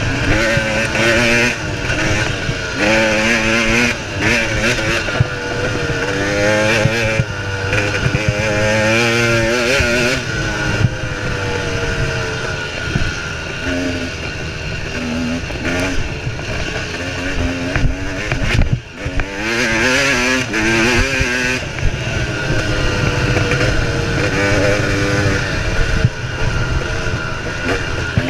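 Single-cylinder two-stroke engine of a KTM 300 XC dirt bike at race pace, its pitch rising and falling again and again with the throttle, with wind rushing over the microphone. The engine note dips out briefly about two-thirds of the way through.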